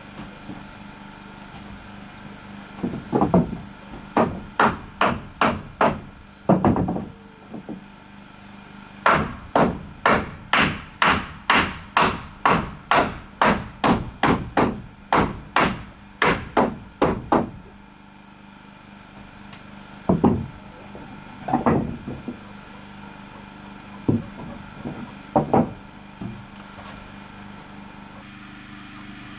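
Hammer blows on wood: a few spaced strikes, then a steady run of about two blows a second for some eight seconds, then a handful of scattered strikes near the end.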